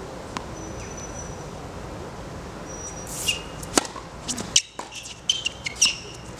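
Tennis rally on a hard court: a sharp pop of the racket striking the ball on the serve a little under four seconds in, followed by more hard ball impacts and short high squeaks.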